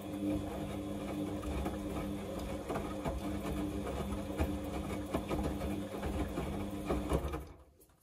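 Samsung front-loading washing machine turning its drum in a wash cycle: a steady motor hum with the wet laundry tumbling and knocking inside, stopping about seven and a half seconds in as the drum comes to rest.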